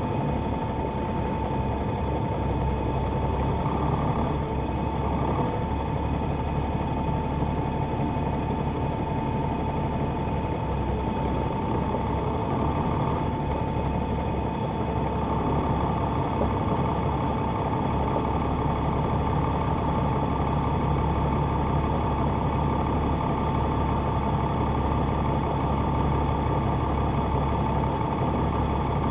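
Cabin sound of a Neoplan AN459 articulated bus from the back seat: its Caterpillar C9 ACERT inline-six diesel and drivetrain running steadily as a low drone, with a steady high whine above it.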